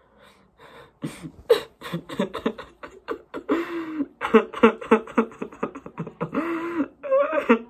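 A boy crying into a tissue held over his face: rapid choppy sobs and gasps, with two longer drawn-out wails, one about three and a half seconds in and one near the end.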